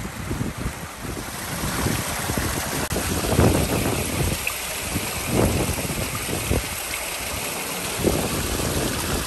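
Shallow creek trickling and gurgling between rocks, with wind buffeting the microphone in several low gusts.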